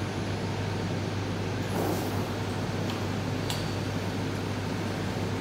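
Steady low hum of machinery and ventilation. About two seconds in there is a short rush of noise, and about a second later a single sharp click.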